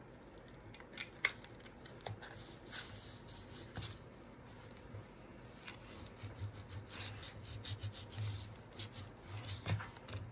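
Hands and a small burnishing tool rubbing and smoothing paper and vellum down onto tape, with scattered light taps and rustles.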